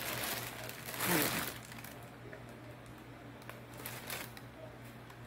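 Light plastic organizer tray being handled and turned over in the hands: a rustling scrape about a second in, with a brief murmured voice, then a couple of faint plastic taps near the four-second mark.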